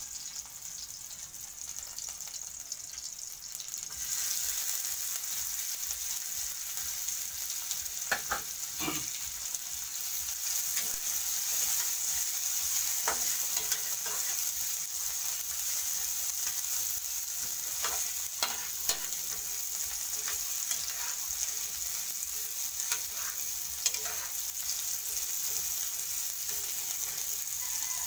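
Garlic and sliced onions sizzling in hot oil in a non-stick frying pan. The sizzle gets louder about four seconds in as the onions go in, and a spatula scrapes and taps the pan a few times while stirring.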